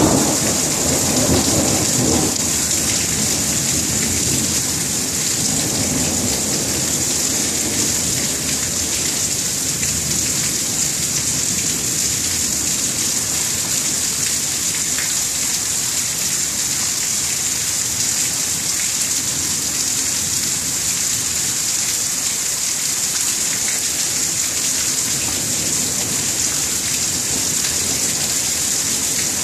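Thunderstorm: steady rain hiss throughout, with a low thunder rumble fading away over the first couple of seconds.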